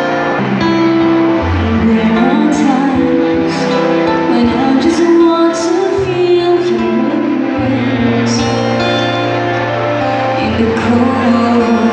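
A woman singing a slow song into a microphone, accompanied on acoustic guitar, amplified through a small PA speaker.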